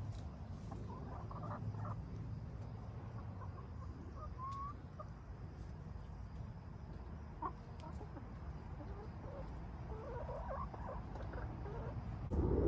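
Backyard chickens clucking softly now and then over a steady low background rumble. A louder rumble comes in near the end.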